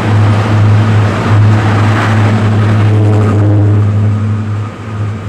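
British Rail Class 55 Deltic diesel locomotive passing close by, its Napier Deltic two-stroke engines running with a loud, steady low drone that eases slightly near the end.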